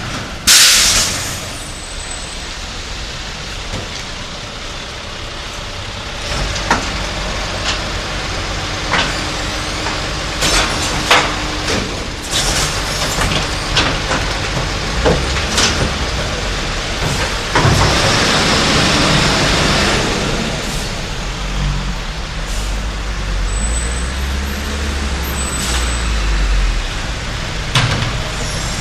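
Garbage truck at work: a sharp air-brake hiss just after the start, then the engine running with a low rumble under a string of clanks and knocks. A second, longer hiss of air comes a little past halfway, and the engine rumble grows louder near the end.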